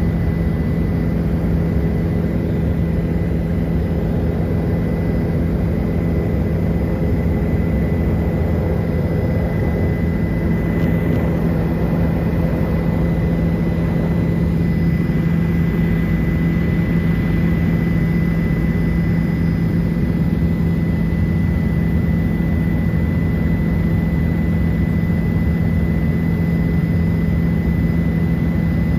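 Helicopter running steadily in flight: a constant loud drone with a strong low hum and a thin, steady high whine above it.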